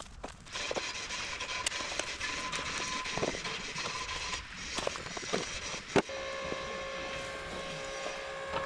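Machinery running with a steady whine and hiss, the pitch of the whine changing about six seconds in, with scattered knocks and clanks.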